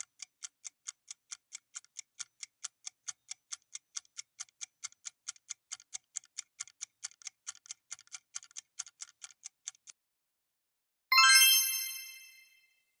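Quiz countdown timer sound effect: fast, even ticking at about four ticks a second for about ten seconds, then a bright chime that rings out and fades, signalling the correct answer.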